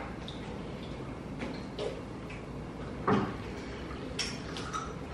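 Scattered light clicks and knocks of a drinking glass and dishes on a glass-topped dining table, with one louder knock about three seconds in, over a faint steady background hiss.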